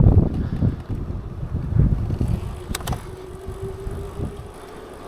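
Wind buffeting the microphone while cycling, strong at first and easing off, with a faint steady hum in the middle and two sharp clicks about three seconds in.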